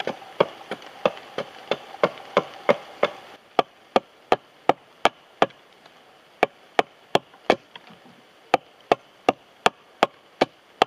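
Small axe chopping into an oak log in quick, even strokes, about three a second. It is tapering the wood into a cone to shape the head of a wooden maul.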